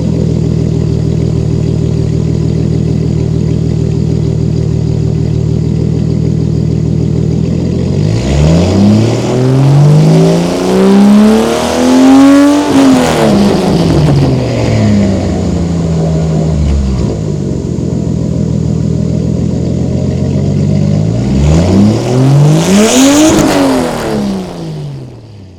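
1989 Toyota Supra Turbo's 7M-GTE inline-six idling through a straight-piped 3-inch exhaust with no cats, resonator or muffler, then revved twice. The first rev climbs for about four seconds and falls back to idle; a shorter one follows near the end, after which the sound cuts off.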